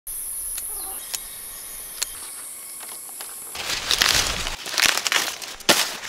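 A steady high-pitched hiss with a few light clicks. About three and a half seconds in it gives way to loud, dry rustling and crackling of leafy plants being handled, in uneven bursts.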